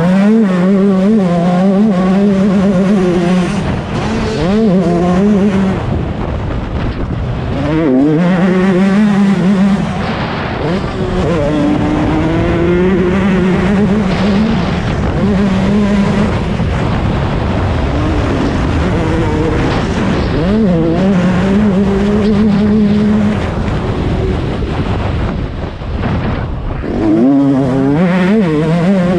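Yamaha YZ125 two-stroke single-cylinder motocross engine at race pace, revving hard. Its pitch repeatedly climbs, breaks and drops with throttle and gear changes.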